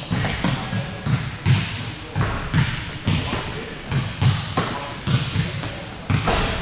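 Basketballs bouncing on a hardwood gym floor, short thuds about two or three a second, echoing in the large hall.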